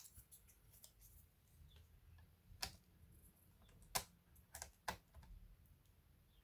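Light clicks and taps of small laptop parts being handled during disassembly, with a few sharper clicks in the middle.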